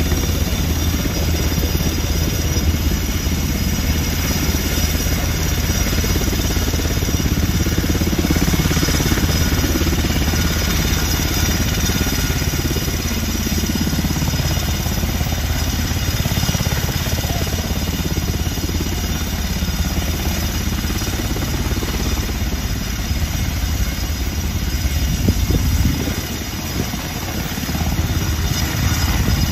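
Helicopter turbines and rotor running at take-off power as the helicopter lifts off and hovers low over the pad. A steady high turbine whine sits over the rotor noise.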